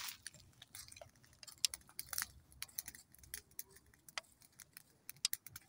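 Campfire of dry twigs and branches crackling, with irregular sharp snaps scattered throughout.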